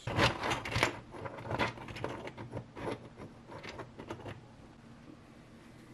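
Plastic clicks and light knocks from the joints of an articulated 3D-printed gorilla figure as its limbs are moved into new positions and it is set on the table. The clicks come thick and fast in the first second and thin out after about four seconds.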